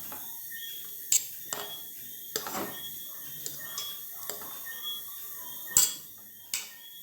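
A metal utensil clinking and scraping against a cooking pot during stirring. There are about eight sharp clinks at uneven intervals, with the loudest one near the end.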